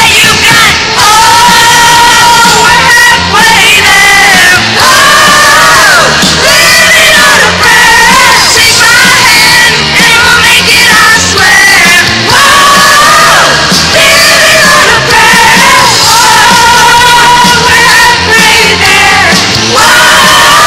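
Loud hair-metal-style rock song: a lead singer belts and yells long, wavering high notes over a full band.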